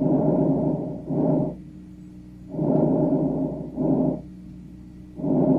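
Recorded vesicular breath sounds from auscultation of the lungs. A soft, low-pitched rustle is heard on inhalation for about a second, followed at once by a shorter exhalation, and the cycle repeats about every two and a half seconds. This is the normal breath sound over the lung fields, with no gap between the inspiratory and expiratory phases.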